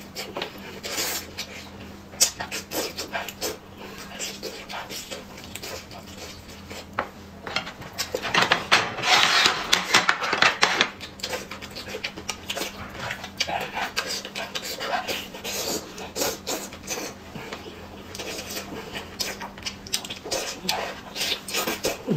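Close-up eating sounds from a woman eating braised chicken by hand: chewing and lip smacks, with sharp clicks and crackles as meat is pulled from the bone. About eight and a half seconds in there is a louder, denser stretch of crackling that lasts a couple of seconds.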